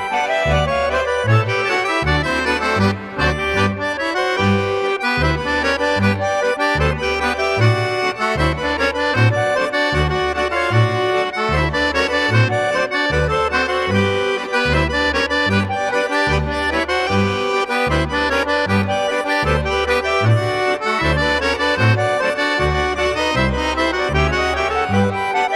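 Accordion music in a traditional style, with a steady oom-pah bass beat under the melody.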